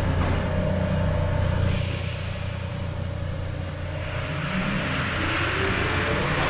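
MP73 rubber-tyred Paris Métro train: a steady low hum, a hiss coming in about two seconds in, then a whine rising steadily in pitch from about four seconds in as the train speeds up.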